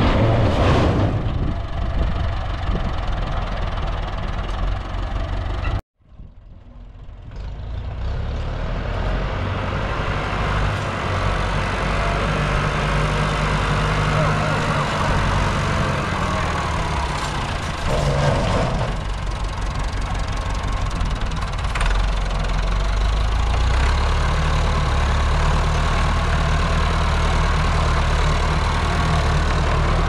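Combine harvester's diesel engine running steadily. The sound cuts out abruptly about six seconds in and fades back up over the next couple of seconds.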